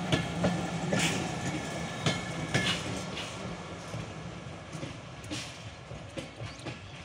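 Passenger train coaches rolling by on their steel wheels, clacking irregularly over the rail joints. The rumble fades steadily as the train draws away.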